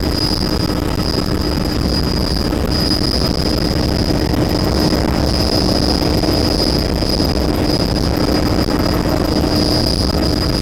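Helicopter in flight, heard from inside the cabin: a steady, loud drone with a high, constant whine above it.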